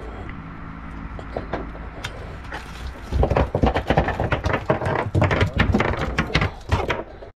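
A small fish, just landed on a jig, flapping against the boat deck: a quick, irregular run of knocks and thuds starting about three seconds in and stopping just before the end.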